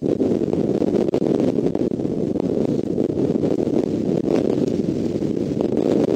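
Wind rumbling steadily on the nest-cam microphone, with a few faint ticks.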